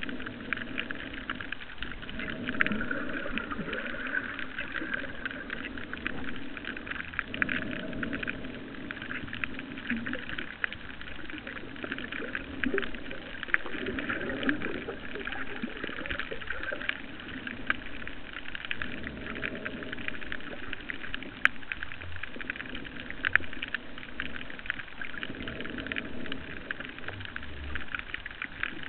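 Underwater ambience: a steady crackling hiss, with a low rushing sound that swells and fades every few seconds.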